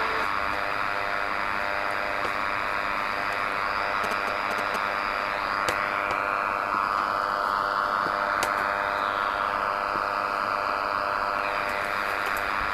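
Degen DE1103 shortwave receiver in SSB mode playing band noise: steady static hiss laced with a dense buzz of many tones. There are a couple of sharp clicks about six and eight and a half seconds in, and faint tones slide through in the middle.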